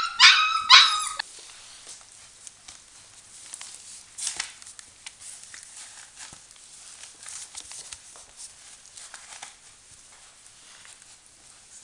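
Five-week-old Border Collie puppies yipping and whining, stopping about a second in. After that there are only faint scattered rustles and small clicks as a puppy plays with a plush toy on newspaper.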